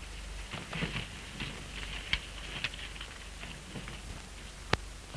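Steady hiss and crackle of an old optical film soundtrack, with a few sharp clicks; the loudest comes near the end.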